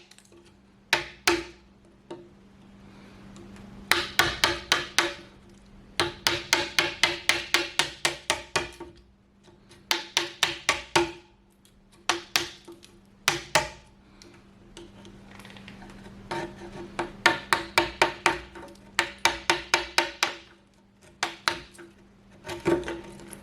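Hammer blows on wood, struck in quick runs of about six a second with short pauses between runs, over a steady low hum.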